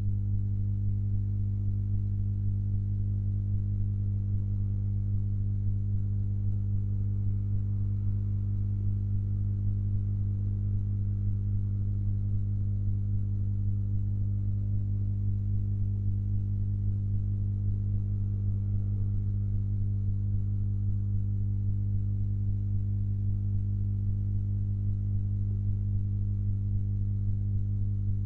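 Steady low electrical hum with a stack of evenly spaced overtones, unchanging in pitch and level.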